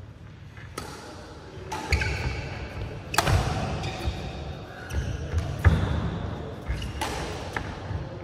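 Badminton rally: sharp cracks of rackets striking the shuttlecock every second or two, with thudding footfalls of the players on the court, echoing in a large hall.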